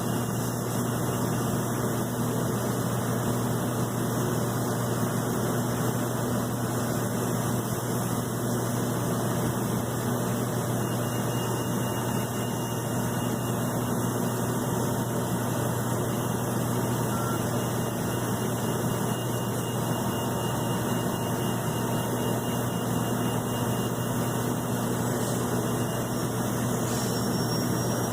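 Steady, unchanging turbine noise with a low hum from a jet airliner running on the ground, the Airbus A330-200.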